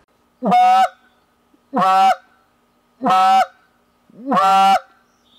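Goose call blown in four separate half-second notes, evenly spaced, each scooping up at its start and then holding steady: the raspy, vibrating "train note", made by raising the tongue against the airflow until the reed vibrates and then pushing more air.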